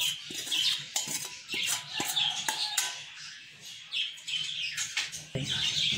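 Small birds chirping over and over in short high calls, with a few light clinks and scrapes of a bowl and spoon as marinade is poured and spread over a raw fish.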